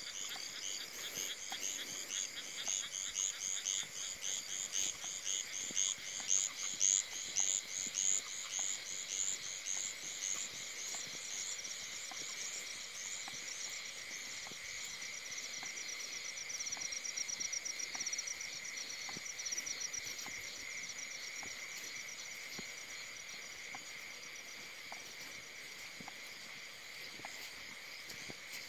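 A night chorus of frogs and insects: rapid, high-pitched calls repeat several times a second, loudest in the first ten seconds. About halfway through, a faster steady trill takes over and fades out near twenty seconds in, all over a constant high insect drone.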